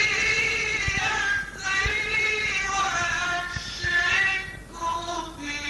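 A male Quran reciter chanting in a slow, melodic style, holding long ornamented notes that waver in pitch, in a few phrases with brief breaths between them.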